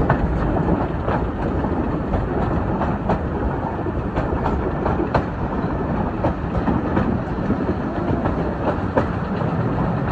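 Railway passenger coach running along the line: a steady rumble of rolling wheels with frequent, irregular clicks as the wheels pass over rail joints.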